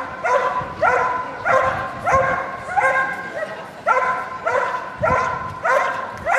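Belgian Malinois barking steadily at a helper hidden in the protection blind, the IPO hold-and-bark: the dog guards him with continuous barking instead of biting. The barks are evenly paced, about two a second.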